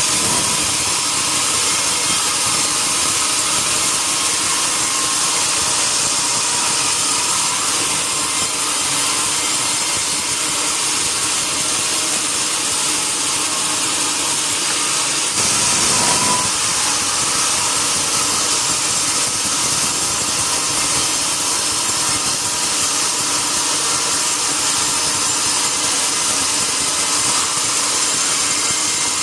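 Sawmill saw cutting through a mahogany log, a steady hissing run with a brief louder surge about halfway through.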